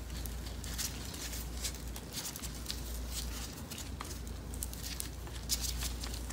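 Light scattered clicks and scrapes as a Heli-Coil thread tap is turned back out of freshly cut threads in an aluminium Yamaha R6 engine casing, handled by gloved hands, with one sharper click about five and a half seconds in. A steady low hum runs underneath.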